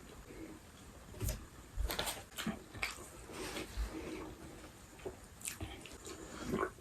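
Close-up eating sounds of a person chewing and biting food: irregular wet mouth smacks and short crisp clicks.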